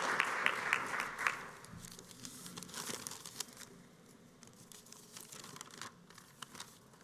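Audience applause dying away over the first second and a half, with a few regular claps standing out. Then faint rustling and scattered small clicks of handling at the lectern microphone.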